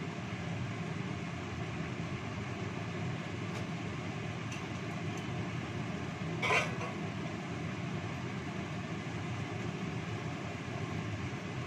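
Gas stove burner running steadily under a wok of tilapia simmering in spiced pesmol sauce, with one brief louder crackle about six and a half seconds in.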